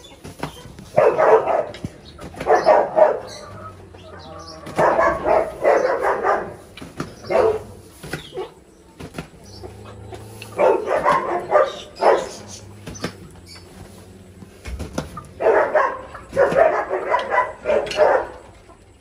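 Loud animal calls in four bouts, each one to three seconds long and a few seconds apart.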